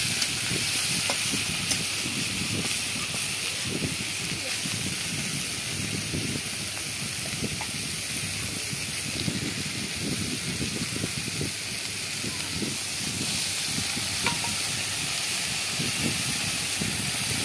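Raw banana pieces, small shrimp and tomato frying in oil in an aluminium kadai, a steady sizzle and hiss with faint crackle.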